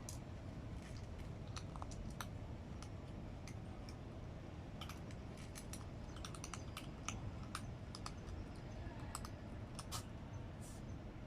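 A cat chewing dry cat food, giving irregular sharp crunching clicks, a few per second, over a steady low background rumble.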